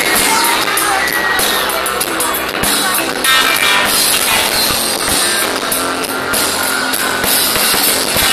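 Live rock band playing amplified, with guitars, drums and some singing, picked up by a mobile phone's microphone so that the sound is harsh and distorted.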